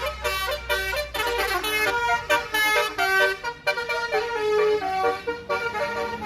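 Basuri telolet musical air horn on a tour bus playing a fast melody, one pitched note after another in quick steps, with a few short breaks between phrases.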